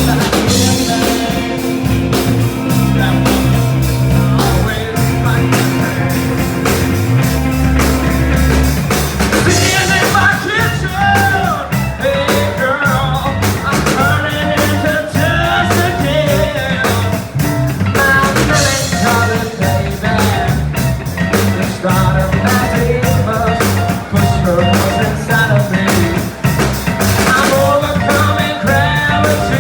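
Live rock band playing: bass, drums and guitar, with a lead vocal coming in about a third of the way through.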